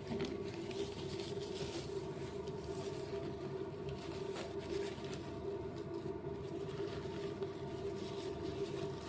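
A steady hum with a constant low tone and a light hiss, unchanging throughout.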